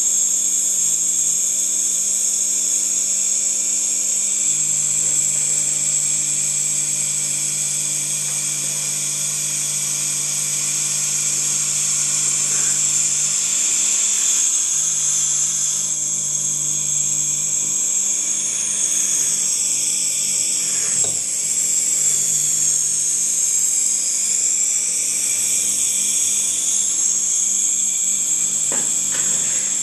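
Small homemade compressor built on a hermetic refrigerator-type compressor, running steadily: a low hum under a strong high-pitched whine and hiss that wavers in pitch for several seconds past the middle.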